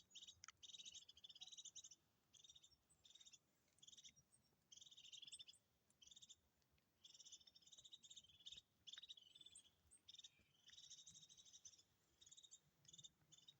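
European goldfinch singing faintly: repeated bursts of rapid, high twittering trills with short pauses between them.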